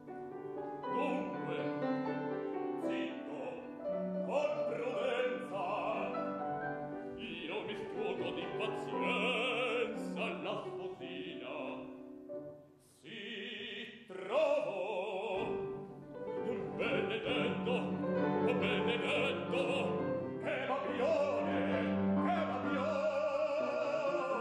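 Operatic male baritone voice singing in Italian with grand piano accompaniment, with a short break about halfway through.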